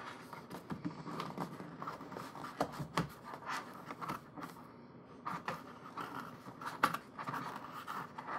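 Paper and packaging scraping and rustling, with scattered light taps and clicks, as a tight-fitting item is pushed back into its packaging.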